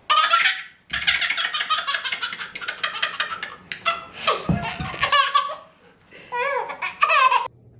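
A baby laughing in several bursts of high-pitched belly laughter, with a long run of rapid laugh pulses in the first half and shorter gliding squeals toward the end.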